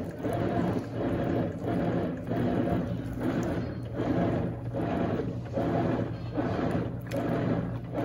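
Brastemp Ego BWI01 washing machine agitating a tub full of soapy water in a cleaning cycle: the motor hums steadily while the agitator swishes the water one way then the other, with a short lull at each reversal, a bit more than once a second.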